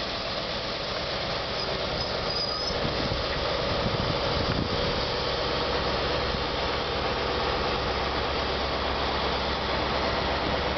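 Cross Country HST high-speed diesel train rolling slowly along the platform: steady wheel-on-rail rumble, with the rear Class 43 power car's diesel engine humming as it draws closer. A brief high squeal comes about two seconds in.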